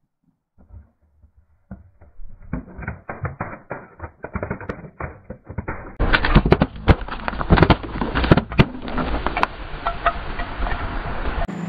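Plastic cups packed with water beads crackling and popping as a car tyre rolls over them, then, after a cut about six seconds in, aluminium soda cans crunching and bursting under a car tyre with a louder run of sharp cracks.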